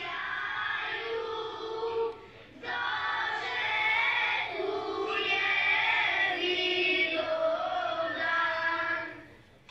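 Choral singing, with voices holding long notes; it breaks off briefly about two seconds in and fades away near the end.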